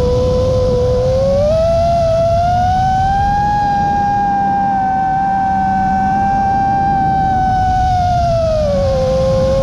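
Motors and propellers of a 5-inch FPV quadcopter (Xilo 2207 1750KV brushless motors) whining as one steady tone that climbs in pitch about a second and a half in, holds higher, then drops back near the end as the throttle eases. A low rush of wind on the on-board camera's microphone runs beneath it.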